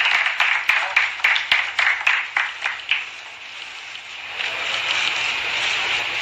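A small group applauding with separate, irregular claps that die away after about three seconds. A steadier wash of noise rises about four seconds in.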